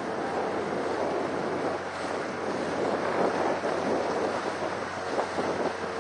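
Wind buffeting the microphone and choppy water splashing against a small boat's hull, with a faint steady engine hum underneath.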